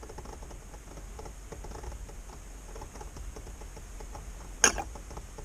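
Power steering fluid being poured from a bottle into the reservoir: faint, irregular small ticks and glugs, with one sharp knock about four and a half seconds in.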